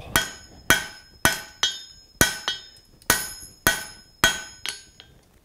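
Hand hammer striking a hot steel bar tilted across the anvil's edge: about eight blows roughly every half second, a few followed by a lighter tap, each ringing briefly. The blows set in a shoulder at a marked line on 1 inch by 1/2 inch bar stock, the first cut before drawing out its middle.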